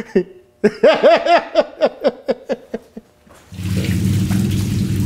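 A man laughing in repeated bursts of 'ha-ha-ha'. Then, about three and a half seconds in, water hisses steadily from a hose onto the front wheel of a white Can-Am Spyder F3 Limited, over a low steady hum.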